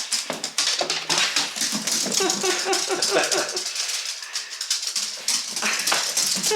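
Dog running around in an excited burst of zoomies: dense, rapid rattling clicks. A short run of pitched vocal sounds comes about two to three seconds in.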